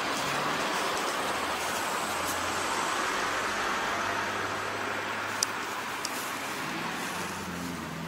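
Steady road traffic noise from cars passing. A little past halfway come two short, sharp clicks about half a second apart.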